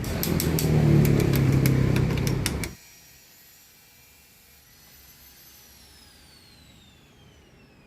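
A motor-driven machine running loud with a run of sharp clicks, then cutting off abruptly a little under three seconds in. Afterwards a faint high whine slowly falls in pitch.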